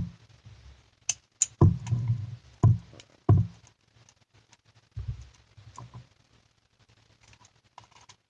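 Irregular clicks and knocks of a speed loader and metal BB shells being fumbled against a CO2 BB revolver's cylinder while they fail to seat, because the cylinder sits too close to the frame. The knocks are busiest in the first few seconds, with a few more around the middle and fainter taps near the end.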